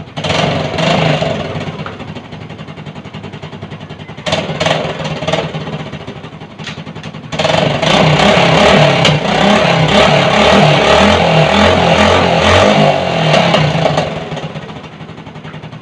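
Motorcycle engine idling, revved briefly twice, then held at higher revs for about seven seconds before dropping back to idle.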